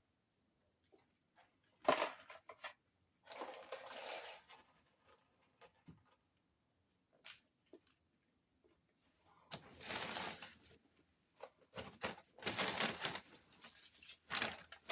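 Paper fast-food wrappers and bag rustling and crinkling in several bursts, with a sharp knock about two seconds in.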